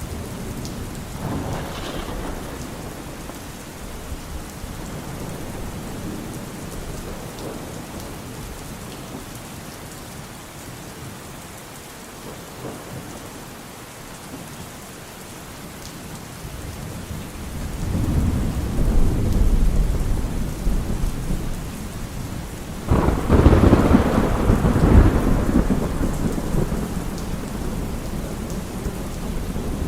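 Thunderstorm: steady rain falling throughout, with a rolling thunder rumble building from a little past the middle and a louder, sharper thunderclap about three quarters of the way through that rumbles away.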